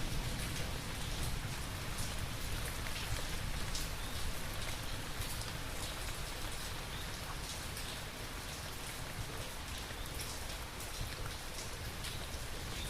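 Steady rain falling, with many separate drops ticking sharply on a hard surface.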